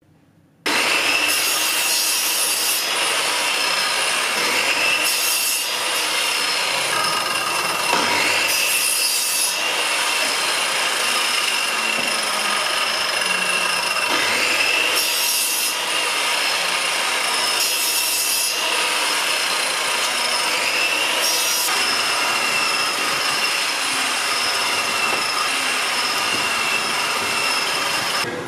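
Miter saw running with a steady high whine, cutting particleboard strips about six times, each cut a short burst of harsher noise.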